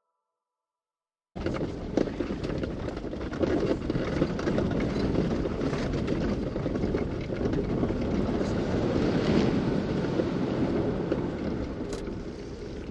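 After about a second of silence, a steady noise cuts in: an off-road vehicle moving along a rough dirt trail, with wind buffeting the microphone and small scattered knocks.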